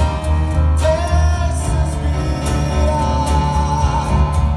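Live acoustic band playing: acoustic guitar and cajon with a steady beat, and a man singing into a microphone.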